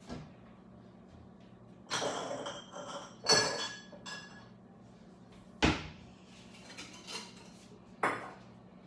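Kitchen cupboard and countertop things being handled: a clatter about two seconds in, then a louder knock that rings briefly, then two sharp knocks, one in the middle and one near the end.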